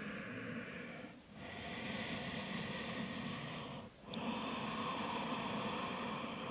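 A woman's slow, deep breathing, each breath a couple of seconds long, with short pauses about a second and four seconds in.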